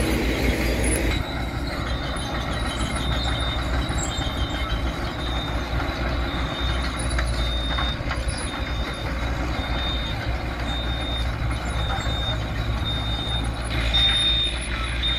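Diesel engines of earthmoving machines running, with a construction vehicle's reversing alarm beeping about twice a second.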